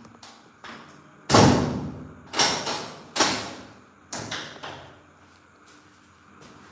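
Four loud thumps, echoing in a stone stairwell, starting about a second in and coming roughly a second apart, the first the loudest and the last much softer.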